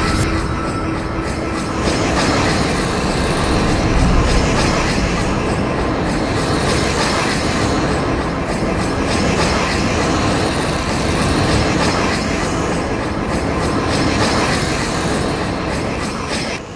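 Loud, dense rumbling and clattering noise with a regular rhythm, like a train running, on the soundtrack of a horror film's DVD menu. It drops away sharply at the very end.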